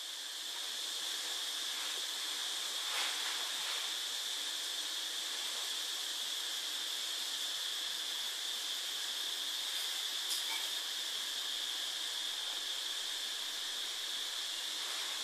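Steady hiss with a faint high-pitched whine held throughout, and a couple of faint clicks.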